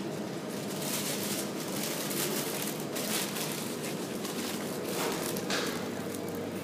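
Busy food shop ambience: a steady hum of background noise with scattered short rustles and knocks.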